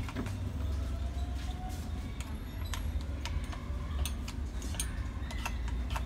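Epson L3150 inkjet printer running a head-cleaning cycle to clear clogged nozzles: scattered mechanical clicks and, about half a second in, a faint motor whine lasting over a second, over a steady low hum.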